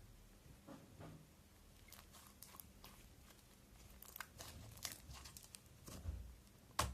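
Hands working slime, giving faint irregular sticky crackles and small pops that grow busier about four seconds in, with the loudest pop near the end.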